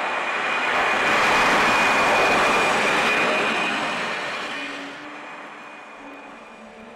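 Jet airliner flyby: a rush of jet engine noise with a high whine in it. It swells to its loudest a second or two in, then fades away by about five seconds in.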